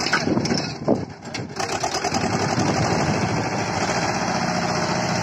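Swaraj 724 XM tractor's diesel engine labouring as it pulls a fully loaded trolley through loose sand. There are a few sharp knocks in the first second and a half, then it settles into steadier running.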